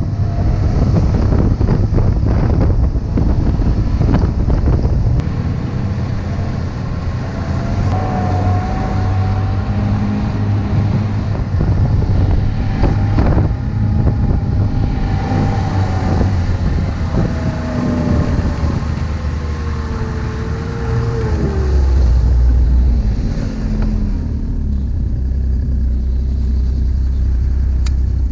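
Ski-Doo Skandic SWT 900 ACE snowmobile's three-cylinder four-stroke engine running while under way, heard from the rider's seat. Its whine rises and falls with the throttle, dropping in pitch in the second half.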